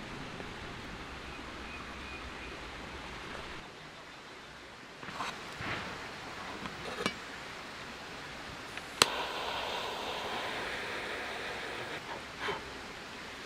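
Steady outdoor background noise with a few light knocks and clicks. The sharpest click comes about nine seconds in and is followed by a hissing rustle.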